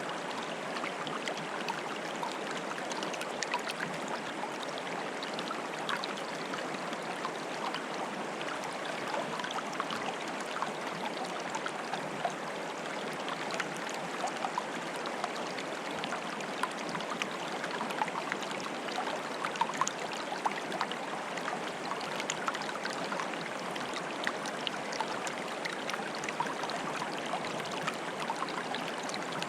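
Stream water bubbling steadily: an even rush dotted with many small plops and splashes.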